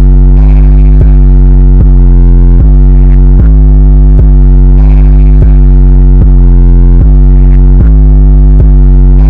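Loud, heavily distorted electronic music with a deep, sustained bass and a sharp beat hit about every 0.8 seconds.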